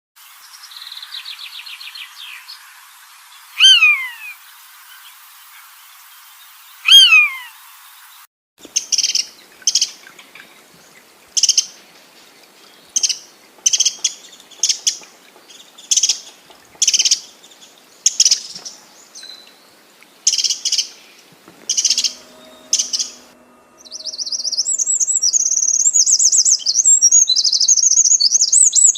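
Birds calling, in three cut-together stretches: first two loud calls that slide down in pitch, then a series of short sharp chirps about once a second, then from near the end a continuous rapid high twittering.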